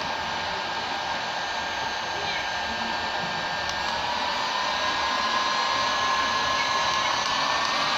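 Dnipro-M FP-203 heat gun running with a steady rush of air and a motor whine; from about halfway through the whine rises slowly in pitch and grows a little louder as the fan speed is turned up.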